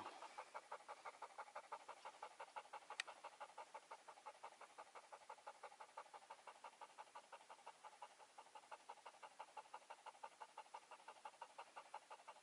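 Dog panting faintly in quick, even breaths, several a second. A single sharp click sounds about three seconds in.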